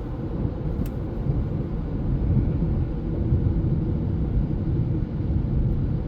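Cabin noise of a 2017 Honda CR-V with the 1.5L turbo engine driving along: a steady low rumble of engine and road.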